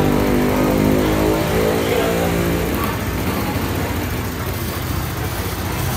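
Motorcycle engine idling with an even, rapid low pulsing. A steady hum over it stops a little under halfway through.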